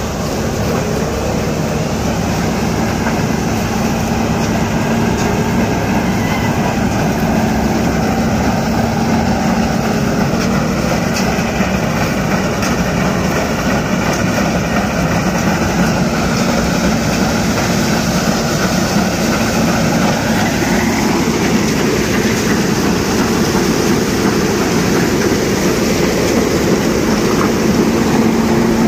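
John Deere W50 combine harvester running while it cuts and threshes a soybean crop: a loud, steady mechanical din with a steady hum, and some higher tones shifting in pitch about twenty seconds in.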